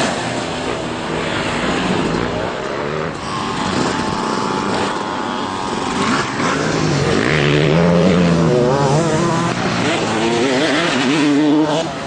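Two-stroke motocross bike engine revving hard on a dirt track, its pitch climbing and dropping again and again as the rider works the throttle through the jumps.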